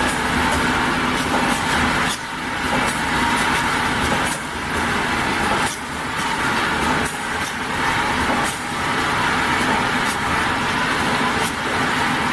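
Automatic round-bottle labeling machine and its slat conveyor running: a steady mechanical hum with a constant low drone and a higher whine, broken every second or two by brief dips and faint clicks.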